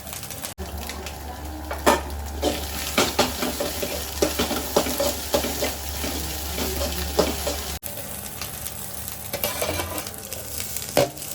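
Food sizzling as it fries in a pan while a spatula stirs it, with frequent clicks and scrapes of the utensil against the pan. The sound breaks off abruptly twice.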